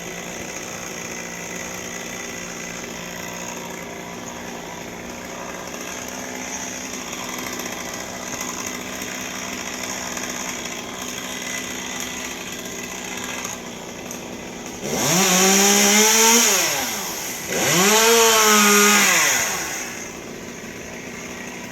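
Chainsaw idling steadily, then revved up twice about two-thirds of the way through, each rev lasting a couple of seconds with the pitch climbing and falling away, before dropping back to idle.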